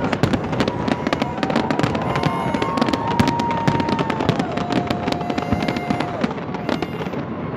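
Fireworks display going off: a dense, unbroken crackle of many sharp pops and bangs, with a few long held tones partway through.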